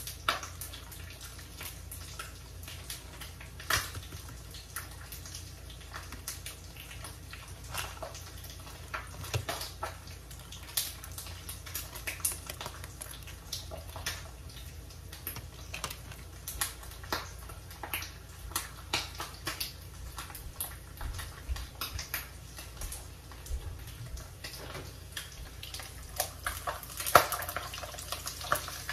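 A metal fork tapping and scraping as sauce is scooped from a small plastic cup and spread on toasted bread: many short, irregular clicks and scrapes. Near the end, a louder clank as the cast iron skillet is lifted off the coil burner.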